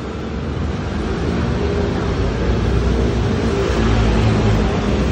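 Steady low rumble of vehicle noise, growing a little louder over the first couple of seconds.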